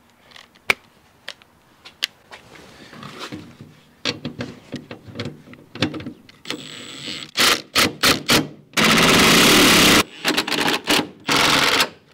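Cordless impact driver fitted with a half-inch socket, first light clicks and knocks as it is handled, then rattling in short bursts as it runs bolts into a steel grain gate, with one longer run of about a second near the end.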